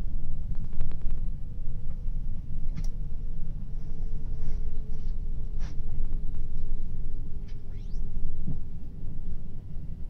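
Train running noise heard from inside the carriage: a steady low rumble of wheels on rails, with a faint hum slowly dropping in pitch and scattered light clicks and squeaks.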